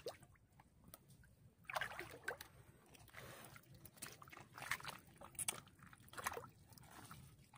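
Shallow river water sloshing and trickling faintly, with a handful of short splashes as hands and legs move through the water and mud while groping for clams.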